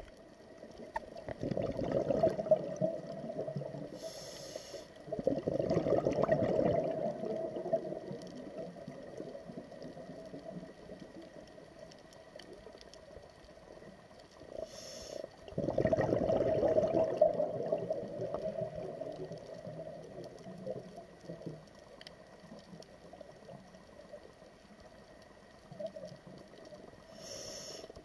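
Scuba diver breathing underwater through a regulator: three short hissing inhalations and three longer bubbling, rumbling exhalations, with quiet water noise between breaths.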